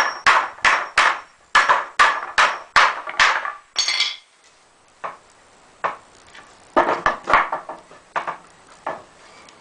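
Hammer striking wooden 2x4 boards: a quick, even run of about eight blows in the first three seconds, then scattered single blows with short pauses between them.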